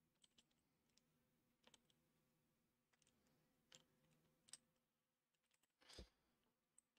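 Near silence with faint, scattered clicks and a soft knock about six seconds in: handling noise from a camera being moved and repositioned.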